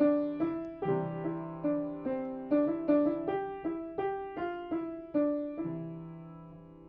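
Piano playing a slow legato right-hand melody, one note about every 0.4 s, over left-hand C chords that are struck again several times. Near the end a final chord is held and left to fade.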